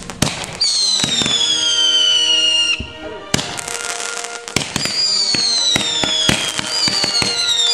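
Consumer fireworks going off: shrill whistles, each falling slowly in pitch over about two seconds, come one after another, three in all, among sharp crackling pops.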